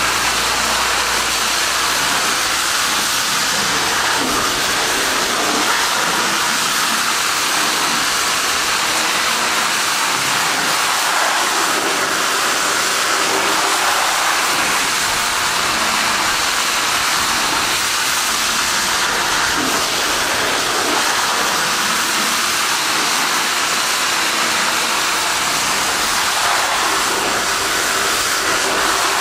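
Akron severe-duty water monitor jetting a strong stream of water onto the mud-caked tracks of a crawler machine: a loud, steady hiss of spray and splashing water.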